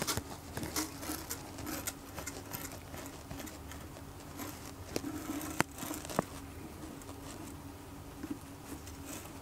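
Dry granular aquarium soil (Tropica Aquarium Soil) being pushed and levelled by hand on the bottom of an empty glass tank: a continuous crackly rustle of small pellets shifting and pattering, with a few sharper clicks scattered through, two of them a little past halfway.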